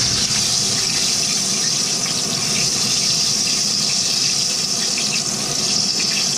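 Flour-battered chicken pieces deep-frying in a pan of hot oil: a steady sizzle.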